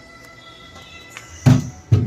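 Soft background music with held notes, then two loud short knocks near the end.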